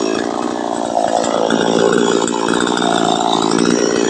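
New West 628 two-stroke chainsaw running hard while cutting a jengkol tree trunk, its engine note sagging and recovering a couple of times as the chain bites into the wood.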